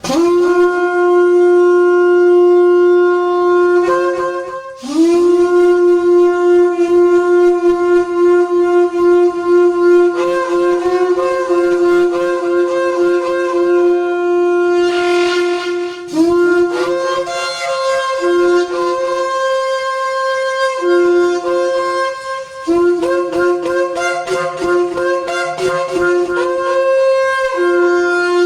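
A kudu horn sounded as a call: a low note held for several seconds with a brief break about five seconds in, then, from around halfway, shorter blasts that step between the low note and a higher one.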